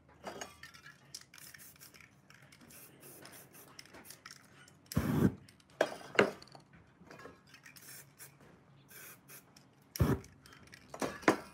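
Spray-paint work at a table of aerosol cans: short scrapes and hisses, with a few louder knocks as cans and tools are handled, two of them about five and ten seconds in.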